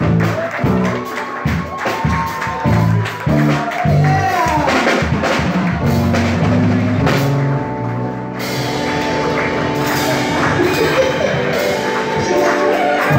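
Live band playing: a woman singing over electric bass, keyboard and drum kit, with a pulsing beat in the first half giving way to held chords.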